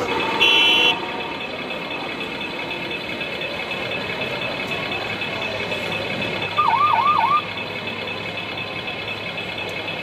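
A short, high electronic beep about half a second in, then a brief siren warble, three quick up-and-down sweeps, a little past the middle. Both sound over a steady mechanical whine and hum.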